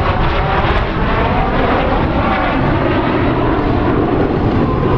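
Canadair CT-114 Tutor jet trainers flying past, their single J85 turbojets making a loud, steady jet noise with slowly wavering, bending tones through it.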